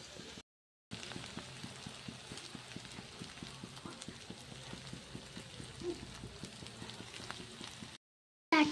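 Mutton and potato pieces frying in a wok, a faint steady sizzle of fine crackles. The sound cuts out completely for about half a second twice, just after the start and near the end.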